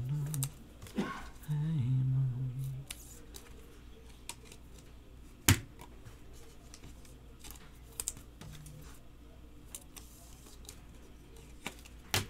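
A man hums a low tune in two short stretches during the first three seconds. Then come the small clicks and ticks of trading cards and a cellophane pack wrapper being handled. One sharp click about five and a half seconds in is the loudest sound, and a couple more clicks fall around eight seconds and near the end.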